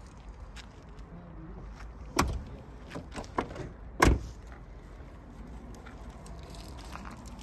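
Minivan sliding side door being worked: a sharp knock about two seconds in, a few small clicks of the handle, then a loud bang as the door shuts about four seconds in.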